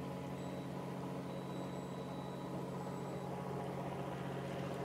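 Fishing boat's engine running steadily at idle, an even low hum, with a faint high-pitched tone coming and going.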